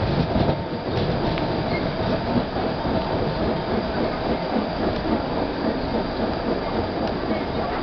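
Passenger train running on the Vitória–Minas line, a steady rumble of wheels on the rails with a few faint ticks.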